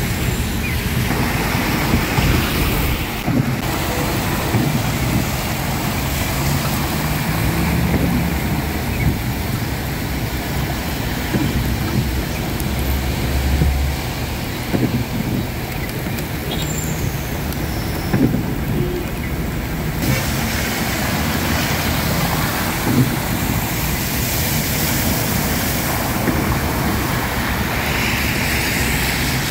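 Road traffic in heavy rain: tyres hissing on wet roads and car engines rumbling, over a steady wash of rain.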